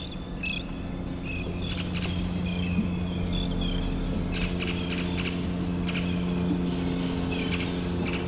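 An engine running with a steady hum that grows gradually louder, with birds chirping over it.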